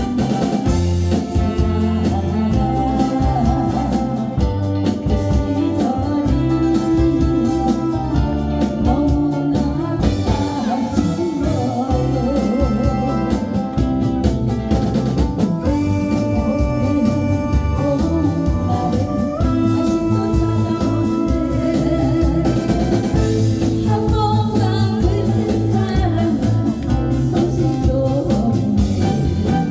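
A Korean popular song (gayo): a singer sings over backing music with a drum beat, guitar and keyboard.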